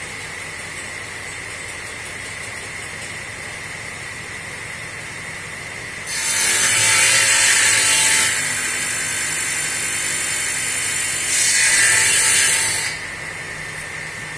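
Sliding table saw running free with a steady whine, then cutting through a wooden board from about six seconds in; the cutting noise is loudest at the start of the cut and again near its end, then the blade runs free again.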